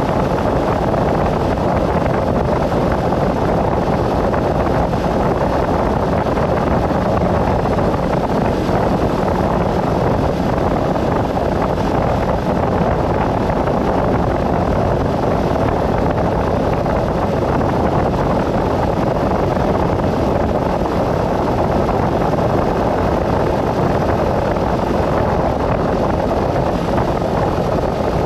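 Steady rush of road and wind noise from a vehicle driving at an even speed, with no change in pitch or level.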